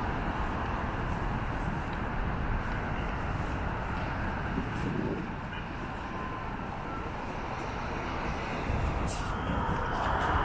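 City street ambience: a steady wash of traffic noise from passing vehicles.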